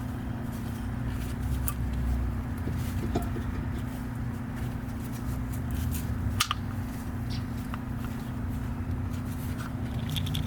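Light scattered clicks and taps of metal brake parts being handled and fitted at a brake caliper, over a steady low hum.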